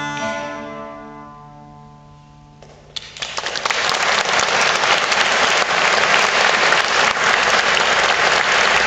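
An early-music ensemble's last held chord dies away in the stone church's echo, then about three seconds in an audience breaks into applause that carries on steadily.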